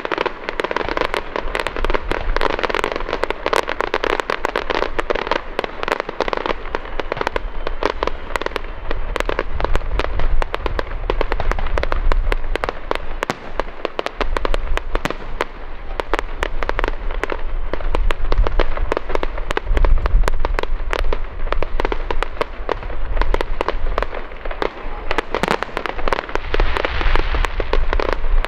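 Aerial fireworks display: a continuous dense crackle of many small pops from crackling and glitter shells, over deep booms of bursting shells.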